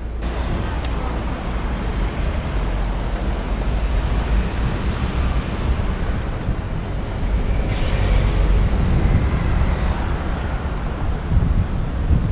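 Wind buffeting the microphone of a camera on a moving bicycle, over the steady noise of city road traffic, slowly getting louder. A brief hiss stands out about eight seconds in.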